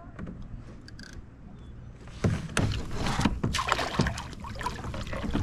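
Water splashing at a kayak's side as a hooked largemouth bass thrashes at the surface while it is brought in. The first two seconds are fairly quiet, then irregular splashing starts about two seconds in and carries on.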